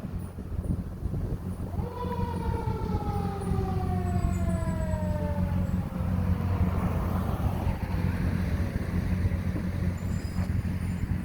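Fire truck siren: its pitch jumps up to a high note about two seconds in, then slowly falls over about five seconds. A vehicle engine drones steadily underneath.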